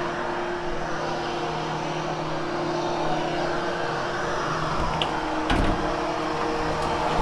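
Hoover HushTone vacuum cleaner running steadily over carpet, a constant motor hum with airflow noise. There are a couple of short knocks about five seconds in.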